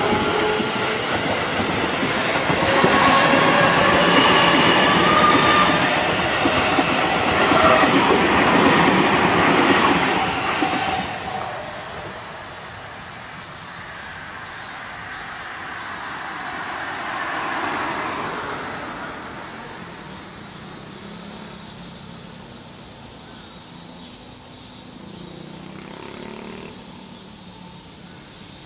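Seibu 30000 series electric train passing close, its wheels rumbling and clattering on the rails with several steady high tones over the noise. It is loud for about the first ten seconds, then drops away and fades as the train runs off into the distance, with a brief swell in the middle.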